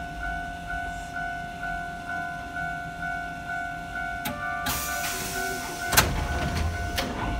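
Stopped tram heard from its cab: a steady tone with a ding repeating about twice a second. About five seconds in there is a short burst of air hiss, then a sharp clunk.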